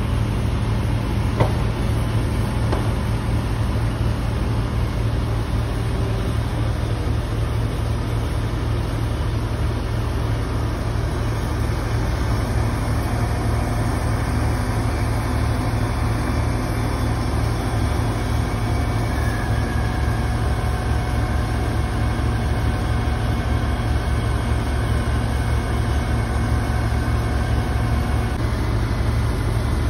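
Truck-mounted crane's diesel engine running steadily under load while hoisting a steel truss, a constant low hum. There is a single sharp click early on, and a faint steady whine joins about halfway through.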